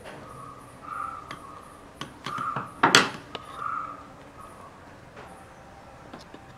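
Clicks and knocks of a screwdriver and bicycle floor pump parts being handled, with one sharp, loud clatter about three seconds in.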